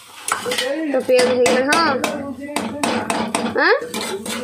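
A metal spatula clanks and scrapes against a steel kadai, stirring onions frying in oil. The sharp knocks come many times over.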